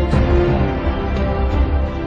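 Background music with a heavy bass beat and sustained tones.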